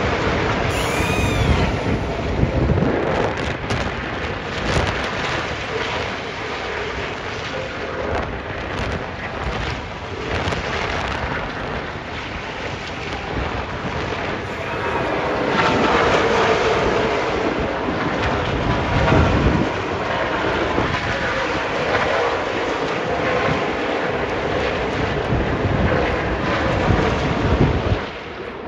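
NASCAR Craftsman race trucks' V8 engines running at the speedway, a loud, continuous rush of engine noise, with wind buffeting the microphone.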